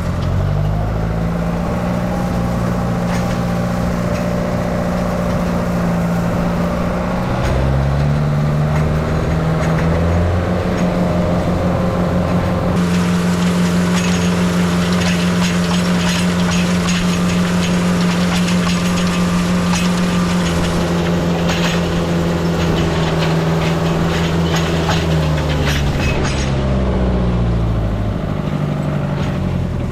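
Tractor engine running steadily while pulling a hay rake, its speed dropping and picking back up a few times. A clattering rattle rides over the engine through the middle stretch.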